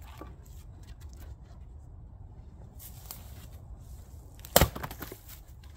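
A 5 lb splitting axe strikes a red oak round on a chopping block once, a single sharp chop about three-quarters of the way in, followed by a few smaller knocks. Fainter knocks and rustles come before the strike.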